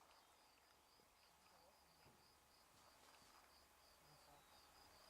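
Near silence, with faint insect chirping repeating evenly, about four short chirps a second.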